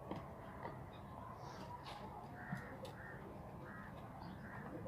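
Crows cawing faintly several times over a faint steady low hum.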